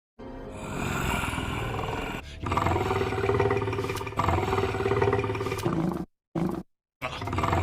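Sharptooth's roar sound effect, the cartoon Tyrannosaurus: a run of long, rough roars edited back to back, with a very short roar between two sudden cuts to silence about six seconds in.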